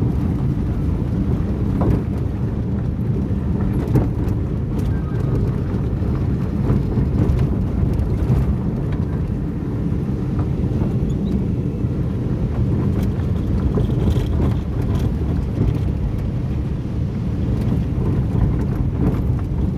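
Volvo engine running steadily, a dense low rumble; it is the engine being diagnosed for a knocking sound.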